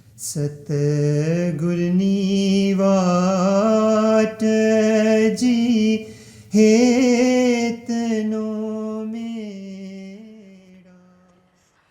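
A solo voice chanting a devotional recitation in long, held notes with melismatic ornaments, pausing briefly for breath twice and fading out near the end.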